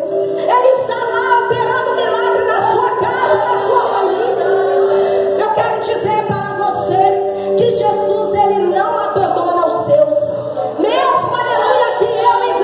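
A woman singing a Christian worship song into a microphone, with long held notes and sliding pitch.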